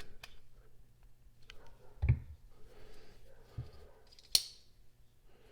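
Quiet handling of a folding knife and a Torx driver while adjusting the pivot: a light knock with a click about two seconds in, and a single sharp click a little past four seconds.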